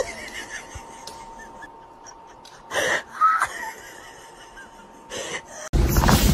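Seals calling with short, hoarse, breathy bursts, several of them a second or two apart. Near the end a louder, steady noise cuts in abruptly.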